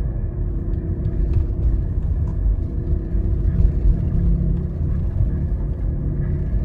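Failed wheel bearing on a moving Mitsubishi, a loud low droning rumble under the road noise that swells and fades a few times in the second half. The very loud drone is the sign of the worn-out bearing.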